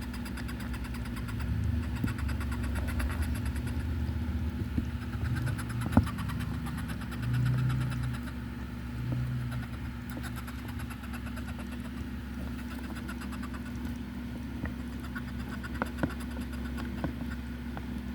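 Giant hermit crab chirping: low, rough croaking chirps over a steady low hum, with two louder ones about seven and nine seconds in and a single sharp click a little before them.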